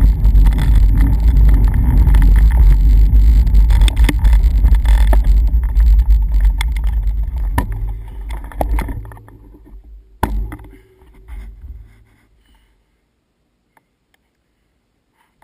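Wind buffeting the camera microphone on a moving bicycle, a loud low rumble that dies away from about eight seconds in as the bike slows to a stop. A single knock comes about ten seconds in, and the last few seconds are nearly quiet.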